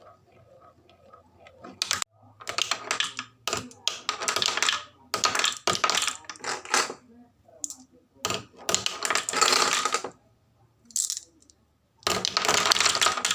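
Glass marbles clattering and rolling down a HABA wooden marble run. The rattle comes in a series of runs, each about half a second to a second and a half long, with short gaps between them; the longest runs are about two-thirds of the way in and near the end.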